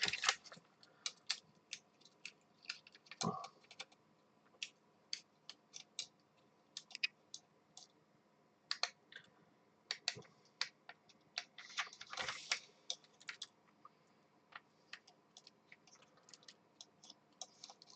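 Faint, irregular small clicks and light scratching as a screwdriver works the Mylar contact sheet of an Atari 1200XL keyboard loose from its PCB, with a dull knock a few seconds in and a short louder scratchy patch about twelve seconds in.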